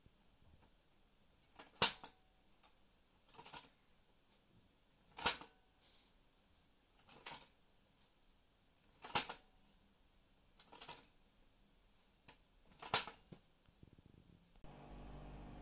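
Cassette door of a Yamaha KX-690 deck opened with the eject button and pushed shut again and again, giving sharp plastic clicks about every two seconds, louder and softer ones alternating. The door's damper piston has been regreased with Nyogel 767A, so it now opens smoothly instead of flying open. Near the end a steady low hum takes over.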